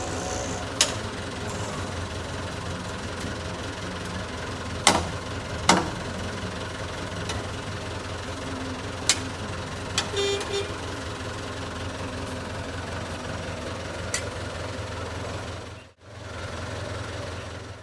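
JCB 3CX backhoe loader's diesel engine running steadily under a low hum, with several sharp knocks at irregular intervals. A short horn toot sounds about ten seconds in.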